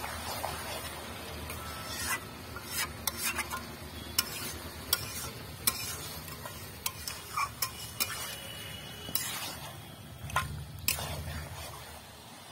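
A wooden spatula stirring and turning spice-coated mutton pieces in an aluminium kadai: wet squelching and scraping, with irregular sharp taps as the spatula knocks against the pan.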